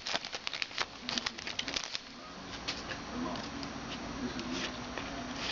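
A foil trading-card pack being opened and its cards handled, making quick crinkling and clicking that is busiest in the first two seconds and then thins to occasional clicks.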